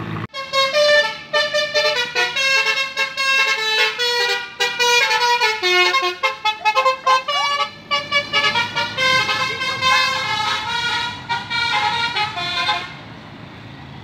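Telolet basuri musical horn on a Mercedes-Benz OH 1626 coach playing a fast melody of many short, stepped notes, starting suddenly and cutting off about a second before the end, leaving road traffic noise.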